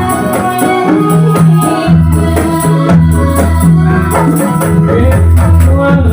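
Ndolalak folk-dance music: a keyboard melody over a steady drum beat with jingling percussion.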